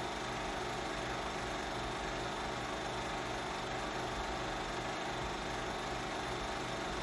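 Film projector running: a steady mechanical hum from its motor with a faint even pulse.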